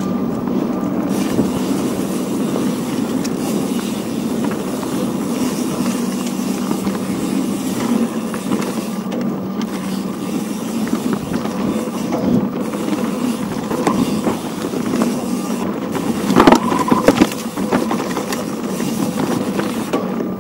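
Off-road vehicle engine running at a steady pitch while driving over rough ground. A cluster of knocks and rattles comes about sixteen seconds in.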